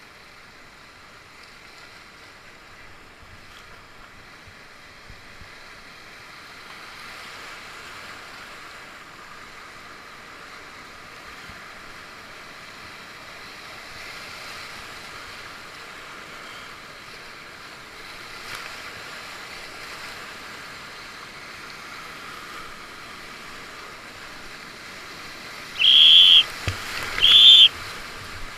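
Rushing whitewater of a Class 4+ river rapid, a steady hiss that slowly grows louder. Near the end, two short loud blasts on a paddler's safety whistle, used as a signal to another paddler on the rapid.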